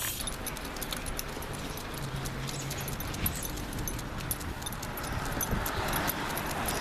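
Footsteps on a walk, with many light metallic jingles and ticks over a steady background hiss.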